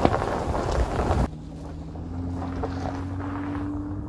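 Wind buffeting the microphone and tyres rolling on snow as the truck drives, cutting off abruptly about a second in. Then the steady low drone of a first-generation Honda Ridgeline's 3.5-litre V6 pulling up an icy trail, its pitch rising slightly.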